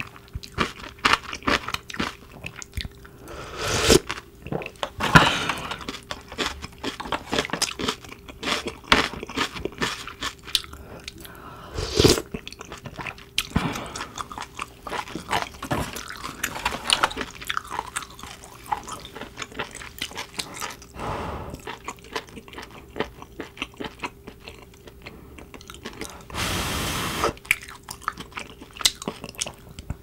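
Close-miked eating of a clam and seafood hot pot with kalguksu noodles: wet chewing and crackling, with wooden utensils clicking and knocking in the foil pan and bowl. A few louder knocks come in the first half, and there is a longer noisy stretch of about a second and a half near the end.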